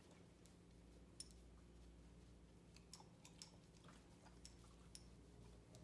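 Near silence with faint, scattered small clicks of a dog chewing and licking a food treat.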